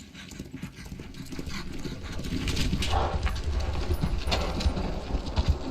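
Hoofbeats of a barrel-racing horse, growing louder over the first couple of seconds, then going on as a steady run of hoof strikes.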